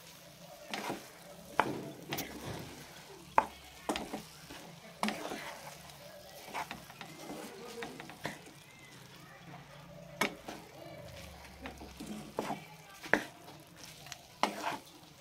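Wooden spatula stirring and turning fried rice in a nonstick pan, with irregular scrapes and taps of the spatula against the pan over a faint sizzle from the frying.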